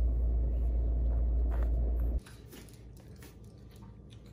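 Steady low rumble inside a car, with a French bulldog puppy chewing and mouthing at a hand. About two seconds in it cuts to a quiet room with faint scattered clicks of the puppy's paws on a laminate floor.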